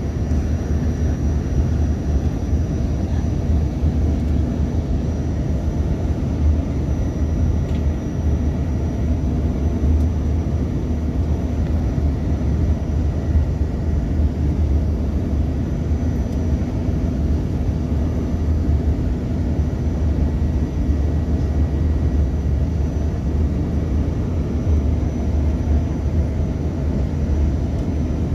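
Embraer 145 regional jet's rear-mounted turbofans and airflow giving a steady deep rumble, with a faint high steady whine above it.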